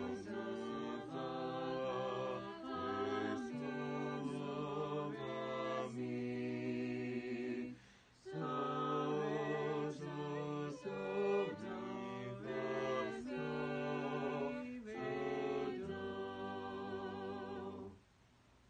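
Four-part a cappella vocal quartet (soprano, alto, tenor and bass) singing a hymn in chords. A short breath break comes about eight seconds in, and the final chord ends shortly before the end.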